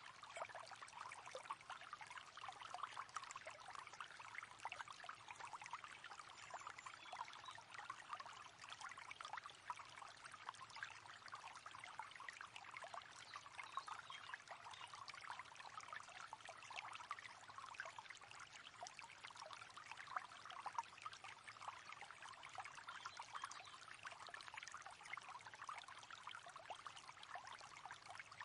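River water flowing, a steady babble of many small trickles and splashes.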